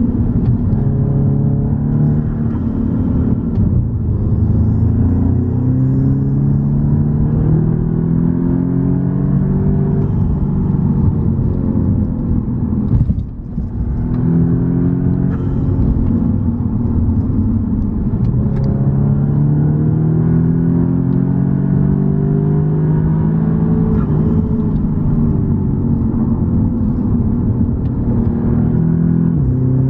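Car engine under way, heard from inside the car: its pitch climbs as it accelerates and drops back again and again, as at gear changes. A brief dip in level comes about thirteen seconds in.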